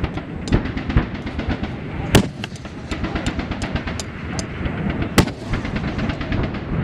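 Sustained gunfire: rapid, overlapping sharp shots in quick runs, several a second, with two louder reports about two seconds and five seconds in.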